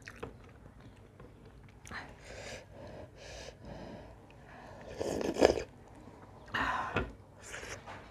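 A person slurping thin buckwheat-flour soup (Thakali alungkhu) from a spoon, with sharp intakes of breath. There are several short slurps, the loudest about five seconds in.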